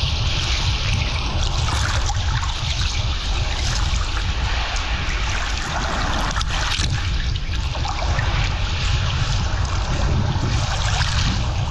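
Sea water sloshing and splashing right at a camera held at the water's surface, with wind rumbling on the microphone. A few sharper splashes come about halfway through.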